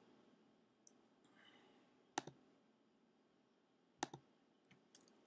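A few sharp computer mouse clicks over near silence: a single loud click about two seconds in and a quick pair of clicks about four seconds in, with fainter ticks between.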